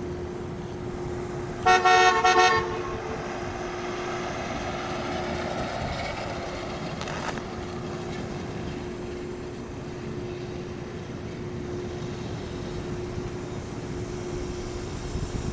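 A car horn gives two short toots about two seconds in, over the steady low running of a 1967 Chevrolet Impala's small-block 283 V8 as it drives slowly past.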